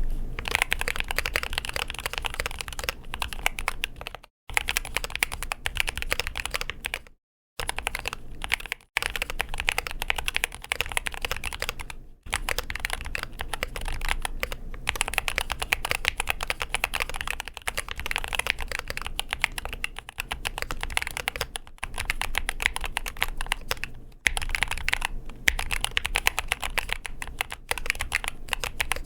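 Fast, continuous typing on a Keychron K2 HE Concrete keyboard, a concrete-cased board with Gateron Nebula magnetic linear switches and double-shot PBT keycaps: a dense clatter of keystrokes that stops dead for a moment a few times.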